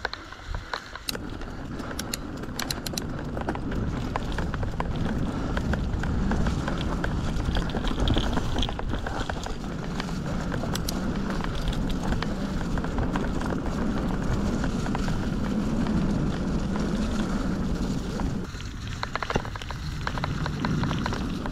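Orbea Occam mountain bike riding over a dirt trail: a steady rush of tyre and wind noise on the action camera's microphone, slowly getting louder, with sharp clicks and rattles from the bike in the first few seconds and again near the end.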